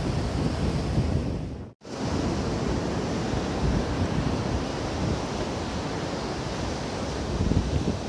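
Wind buffeting the microphone over the steady wash of ocean surf on a beach. The sound drops out for an instant just under two seconds in.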